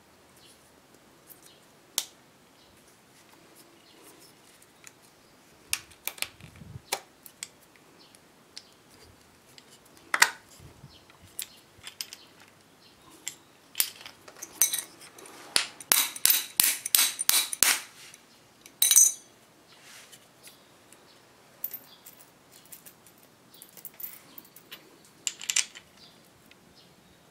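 Small metal hardware (a bolt, nuts and washers) clicking and clinking as it is handled and fitted onto wooden blocks, with scattered sharp clicks and a quick run of about a dozen clicks around the middle.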